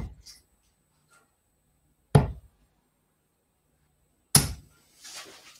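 Three steel-tip darts striking a Winmau Blade bristle dartboard one after another, each a sharp thud, about two seconds apart.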